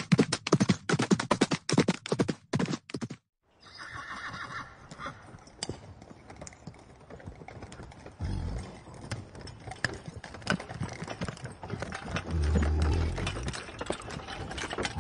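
Horses: first a horse trotting on sand, a fast rhythmic run of loud hoofbeats that cuts off about three seconds in. Then quieter horse sounds, with a neigh among them.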